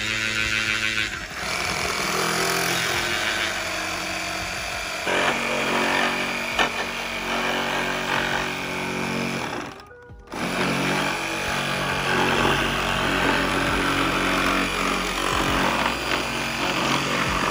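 Cordless reciprocating saw cutting plastic, 2-inch PVC pipe and a 5-gallon plastic bucket, with the blade rattling rapidly back and forth. It stops briefly about ten seconds in, then cuts again.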